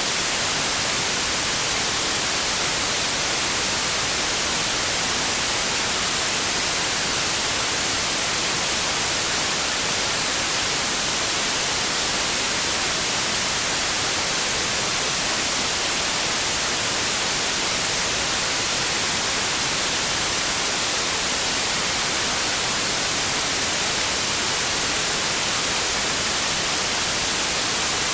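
Steady white noise, an even hiss with most of its energy in the high frequencies, unchanging throughout.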